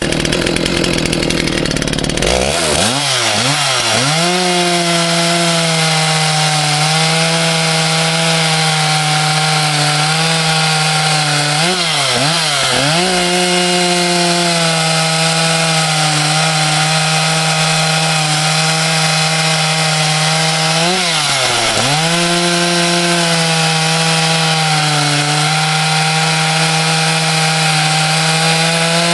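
Makita 90cc two-stroke chainsaw with a ground chain and 8-pin sprocket, running hard while cutting wood. Its engine note holds high and steady, dipping briefly and picking back up about twelve seconds in, again around twenty-one seconds, and once more at the end.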